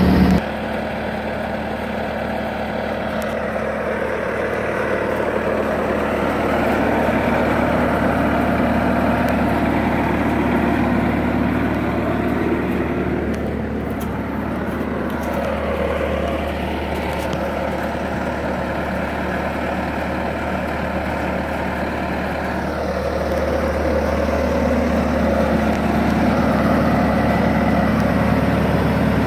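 Bobcat S300 skid-steer loader's diesel engine running steadily, its level and pitch shifting a little now and then.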